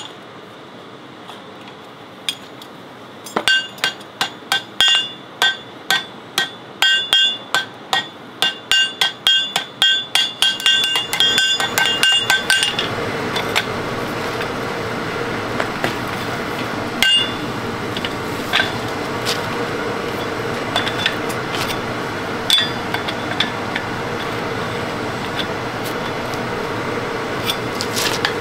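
Blacksmith's hand hammer striking hot iron for a pitchfork on an anvil: a run of quick ringing blows, about two or three a second, starting a few seconds in and stopping about halfway. After that a steady noise rises underneath, with only a few single strikes.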